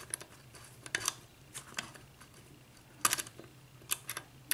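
Metal clicks and clacks of a six-pin key-in-knob lock cylinder being worked with its key, with a few separate clicks and the loudest clack about three seconds in.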